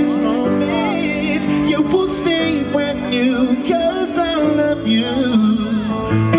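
Live male vocal ballad accompanied by grand piano: sustained piano chords under a wavering sung melody, played through a concert sound system.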